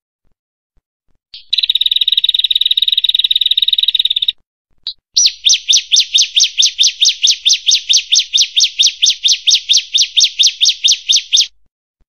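Prenjak, a small Indonesian warbler, singing. A fast buzzy trill lasts nearly three seconds, then comes a single short note, then a long even run of sharp, falling chip notes, about six a second.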